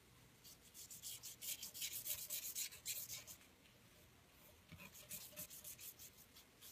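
Watercolour pencil scribbled rapidly back and forth on paper, a fast scratchy stroking in two runs with a pause of about a second between them.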